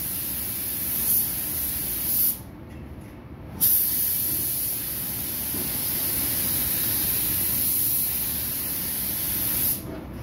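Gravity-feed paint spray gun hissing with compressed air as it sprays a car bumper. The hiss stops for just over a second a little after two seconds in, between passes, then runs on and cuts off near the end. A steady low rumble sits underneath.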